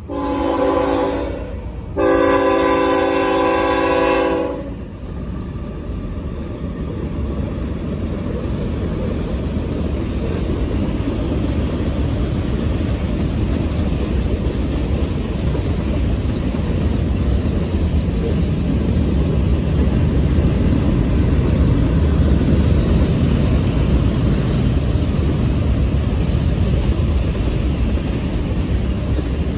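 Norfolk Southern freight locomotive horn sounding two blasts, a short one and then a longer one. After that comes the steady low rumble of freight cars, tank cars and hoppers, rolling past on the rails and growing slowly louder.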